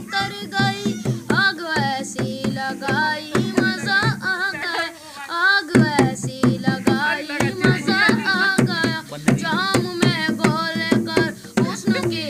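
Children singing a song to a dholak, a two-headed rope-tensioned barrel drum beaten by hand, with a brief pause in the voice about five seconds in.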